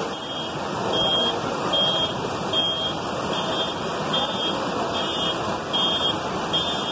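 Floodwater rushing through a street in heavy rain, with a high electronic alarm beeping steadily over it, a little more than once a second.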